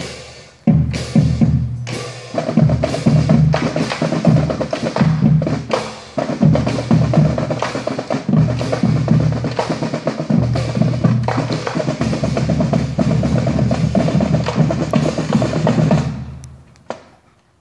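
Marching band drumline playing a cadence, with snare and bass drums in a steady driving rhythm. It stops about a second before the end, leaving a few sharp clicks.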